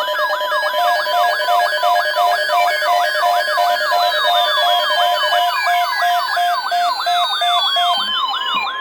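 Several electronic siren and alarm tones layered at once: a fast rising yelp repeating about three times a second, on-off beeps, a steady tone and slow falling whistles, all cutting off together near the end.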